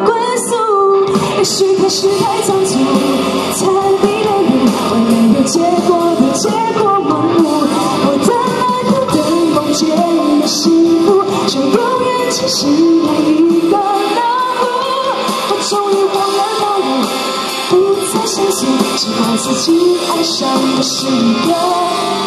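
A woman singing a Mandarin pop song live into a handheld microphone, over the song's musical accompaniment.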